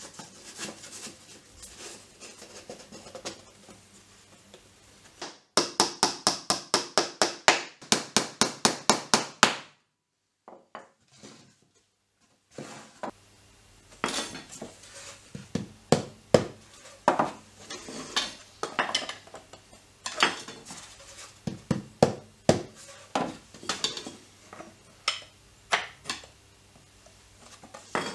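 Pine drawer parts being handled and fitted by hand: wood knocking and clicking against wood. A few seconds in comes a fast, even run of more than twenty sharp strokes that stops suddenly. After a short near-silent gap come irregular taps and clacks as the notched strips and tray are worked.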